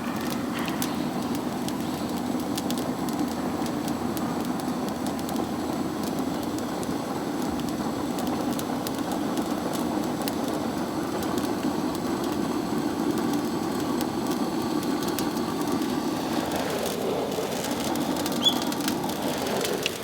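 Bamboo fire burning hard in a pail can with air holes at the bottom: a steady rushing of flame from the draft, with crackling throughout and one sharp pop near the end.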